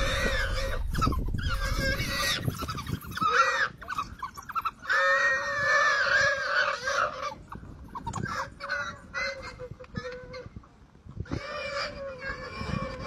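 A wild pig squealing in distress again and again while a pack of African wild dogs attacks it. Its drawn-out squeals come in a string, the longest lasting about two seconds about five seconds in.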